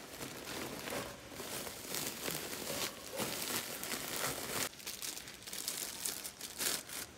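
Plastic crinkling and rustling as a red woven plastic sack and black plastic seedling bags are handled, in irregular rustles with a short lull about five seconds in.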